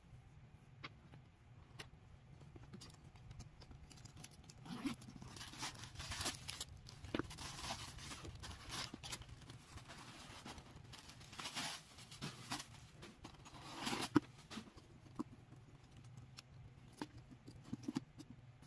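White paper stuffing inside a new leather handbag crinkling and rustling in irregular bursts as hands work into it and pull it about, busiest through the middle, with scattered small clicks and taps from handling the bag.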